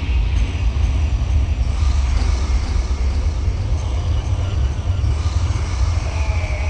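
A steady low rumble at an even level, with no clear events or rhythm.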